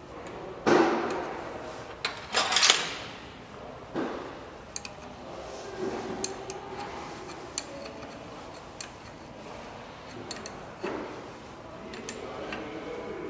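Irregular metal clinks and knocks of steel change gears being handled and fitted onto the lathe's end gear train by hand. The loudest clanks come about a second and two and a half seconds in, with lighter taps scattered after.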